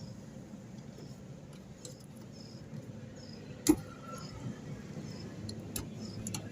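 Small clicks and knocks of parts and tools being handled over a low steady hum, with one sharp loud click a little under four seconds in and another near six seconds.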